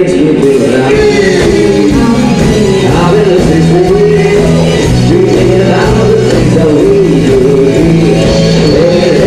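Live band playing loud music with a singer's voice carrying the melody over the bass and band.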